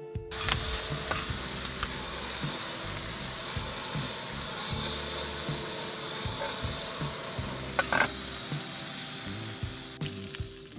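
Mushrooms, onion and bacon sizzling in a non-stick frying pan over a portable gas burner, with scattered clicks as the pan is stirred. The sizzle drops away near the end.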